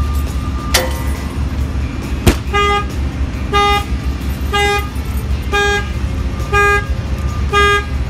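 Two sharp knocks of a hand banging on a Freightliner truck's window glass, which trip the aftermarket alarm's shock sensor: about half a second after the second knock the truck's horn starts honking in a steady pulse, about once a second, six times.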